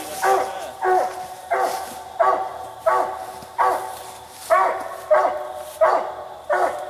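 Treeing Walker coonhound barking steadily at the tree, about ten barks at an even pace of roughly one every two-thirds of a second: the tree bark of a hound that has a raccoon treed.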